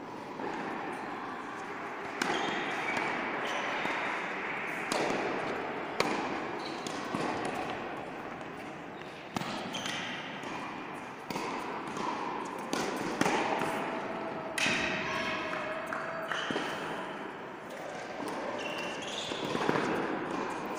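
Tennis ball being struck by rackets and bouncing on an indoor hard court, sharp pops every second or few, echoing in a large hall, over background voices.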